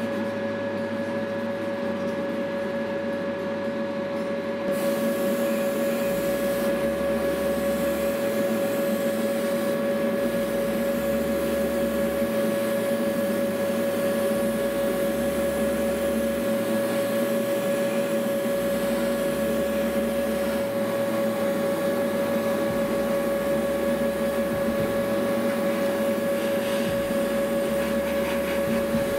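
Steady hum of a small electric motor, with the hiss of an airbrush spraying primer at about 20 PSI joining in about five seconds in and running steadily.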